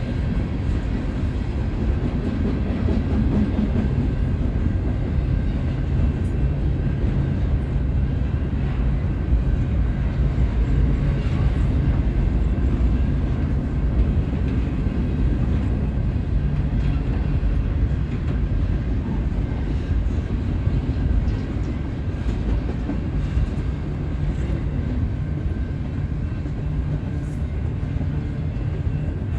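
Railroad train rolling past with a steady low rumble, with a few faint clicks from the wheels.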